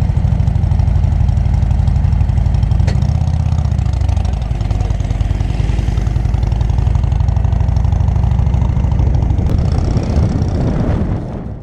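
Harley-Davidson Road King's V-twin engine running at low speed as the bike rolls off, its pitch rising briefly about three seconds in; the engine sound cuts off suddenly just before the end.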